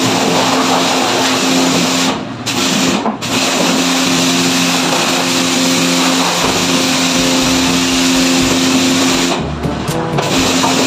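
Self-service wash bay pressure washer jetting water onto a scooter to rinse off soap: a loud steady hiss of spray over the pump's hum. The spray drops out briefly twice, about two and three seconds in, and again for about a second near the end.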